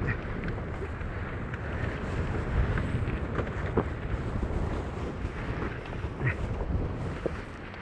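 Strong wind buffeting the microphone over the rush of water past the hulls of a Tornado catamaran sailing fast. A few short knocks come through about halfway in and near the end.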